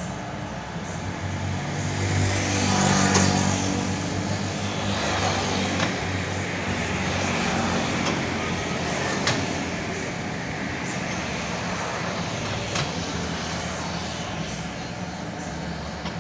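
Heavy diesel machinery running under load, the engine swelling up about three seconds in and settling back, with a few sharp metallic clanks.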